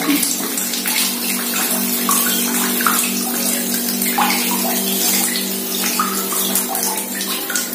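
Water trickling from a plastic tap into a nearly full tub, a thin stream as the bottle float pushes the tap toward closing. A steady hum runs underneath and fades out near the end.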